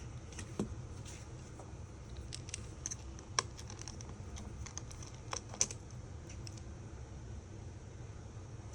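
Scattered light clicks and taps of small repair tools working on an iPhone 5's internal parts, a few sharper ones standing out, over a steady low hum.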